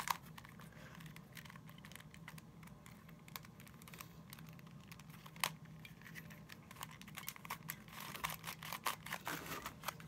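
Plastic helicopter puzzle cube being twisted by hand: faint clicking and rattling of its pieces turning, with the springs inside audible. The clicks come thicker and faster near the end.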